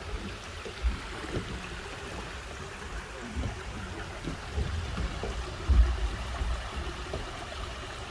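Mountain stream running over rocks, a steady rushing. There are several short, low thumps, the loudest about six seconds in.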